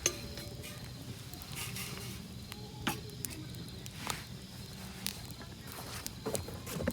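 Wood campfire crackling, with a handful of sharp pops a second or so apart over a low steady hiss.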